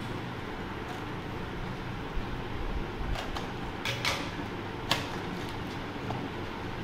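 Steady background hum, with a few short sharp clicks and rustles between about three and five seconds in as packaging and scissors are handled on a table.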